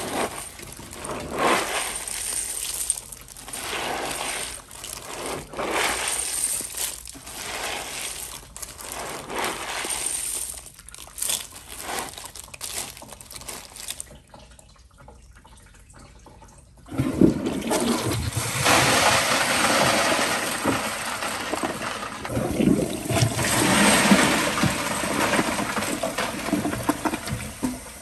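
Candy, wrappers and balls rattling and crinkling as a hand stirs them in a full toilet bowl. About seventeen seconds in, the toilet flush starts with a sudden loud rush of water that carries the candy down the drain.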